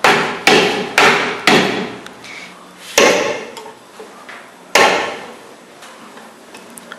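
Six hammer blows on the seized brake drum of a 1970 VW Variant, each ringing briefly. Four come about half a second apart, then two more are spaced out. The brake shoes are stuck to the drum, and the blows are to knock it loose.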